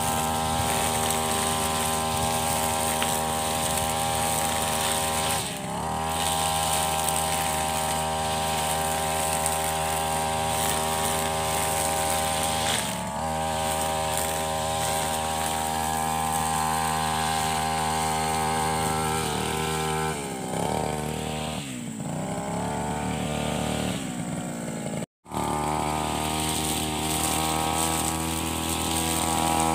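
Backpack brush cutter fitted with nylon trimmer line, its small petrol engine running at high speed while cutting grass. Its speed dips briefly twice, then it slows and speeds up several times over a few seconds. After a short break near the end it runs steadily again.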